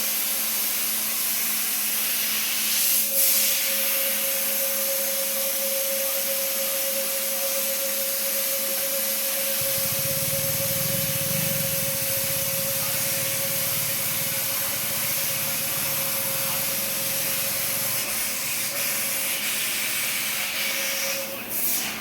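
CNC fibre laser cutting machine running: a loud steady hiss, with a steady whine that sets in about three seconds in and stops just before the end. A low rumble joins about ten seconds in.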